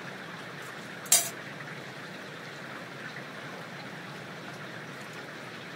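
Steady rush of running water in the wet woods, with one sharp metallic clink about a second in that rings briefly.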